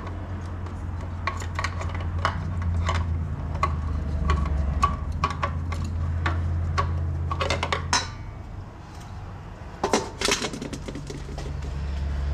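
Hand tools and bolts clinking and tapping on metal as an automatic transmission filter is unbolted: sharp irregular clicks about once or twice a second, with a quick clatter about eight seconds in and another about ten seconds in. A low steady hum runs underneath and drops out after the first clatter.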